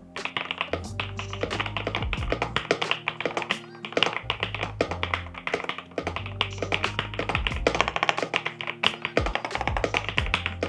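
Typing on an Epomaker Glyph mechanical keyboard with Wisteria Linear V2 linear switches: a quick, uneven run of key clacks, several a second, with background music underneath.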